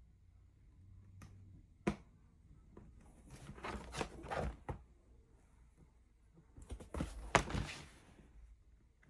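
X-Acto knife trimming the edge of a sign, with a sharp tap about two seconds in, then two stretches of scratchy cutting noise, the second a little after the middle.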